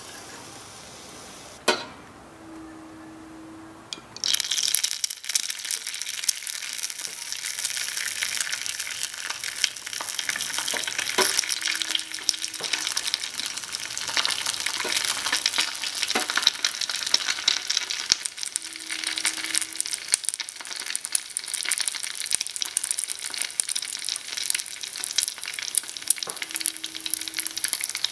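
An egg frying in hot oil in a miniature frying pan over a tiny flame. After a click and a quieter stretch, sizzling and crackling start suddenly about four seconds in, as the egg goes into the oil, and keep on steadily.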